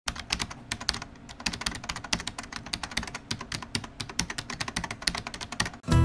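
Rapid, irregular clicking of keys being typed on a computer keyboard, several keystrokes a second, stopping near the end.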